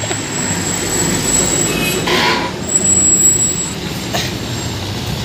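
Diesel engine of a loaded cargo truck rumbling as it drives close past, with a tractor pulling a loaded trailer following behind. The noise swells to its loudest a couple of seconds in as the truck goes by.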